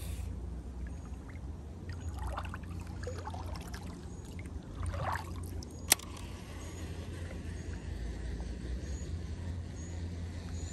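Water trickling and splashing around a kayak, in a few short patches in the first half, with one sharp click about six seconds in, over a steady low wind rumble.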